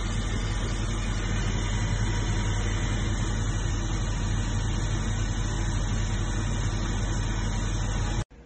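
Ninja Air Grill AG301's convection fan running steadily during cooking: a loud, even whoosh with a low hum underneath.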